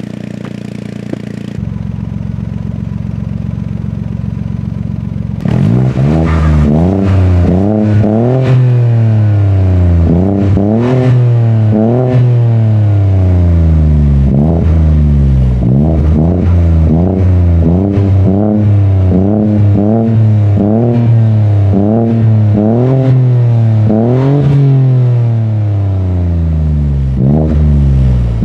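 MINI Cooper F56 1.5-litre turbocharged three-cylinder engine through a custom cat-back exhaust with a Vibrant straight-pipe muffler. It idles steadily, then from about five seconds in it is revved over and over, each rev rising and falling in pitch, about one every second or two.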